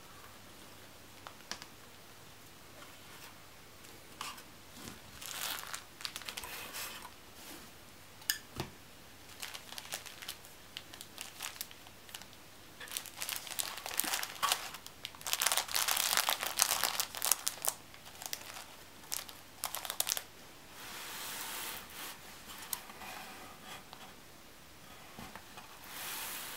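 Clear plastic wrapping and shredded paper filler crinkling and rustling as they are handled, in irregular bursts, loudest about halfway through. One sharp click stands out shortly before that.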